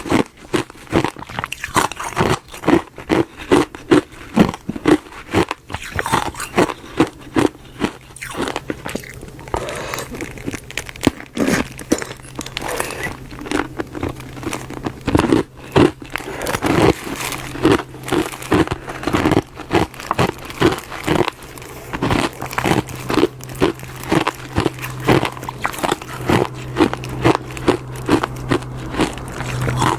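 Solid ice being bitten and chewed close to the microphone, crunching and cracking in repeated chomps at about two a second.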